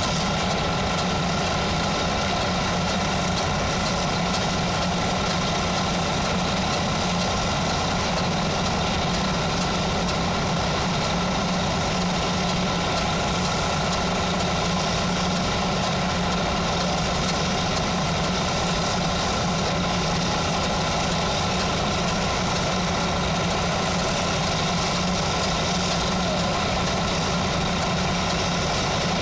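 An engine running steadily at idle, with an even low hum and no change in speed.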